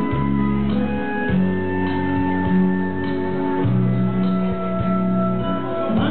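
Instrumental music with guitar, long held notes over low bass notes that change every second or two.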